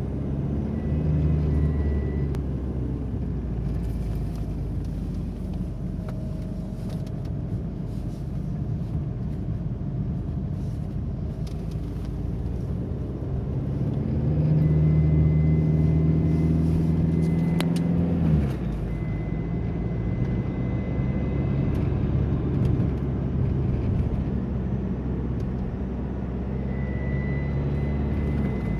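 Alfa Romeo 147 running under very gentle acceleration, with a thin high whistle that comes and goes several times: the strange whistle the car makes only when accelerating very slowly. About halfway through the engine note rises and gets louder for a few seconds, then drops off suddenly.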